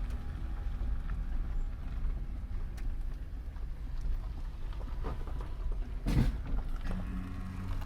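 Minivan driving slowly over a rough dirt road, heard from inside: a low rumble from the road with small rattles and clicks, and a loud jolt about six seconds in. After the jolt a steady engine drone comes up.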